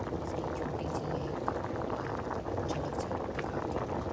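Rice boiling hard in a pan of water: a steady, dense bubbling with many small pops.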